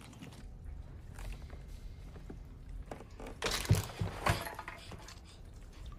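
A few heavy thuds with cracking crunches about three and a half to four and a half seconds in, over a low rumble.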